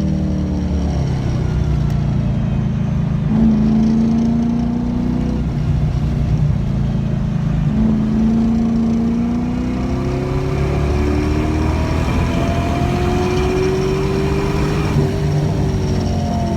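LS1 V8 engine in a BMW 318ti under hard track driving, pulling and easing off in turn. Its pitch climbs over several long accelerations, the longest about ten seconds in, and drops back between them.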